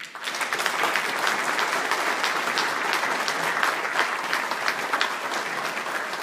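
Audience applauding, many hands clapping densely; it starts suddenly.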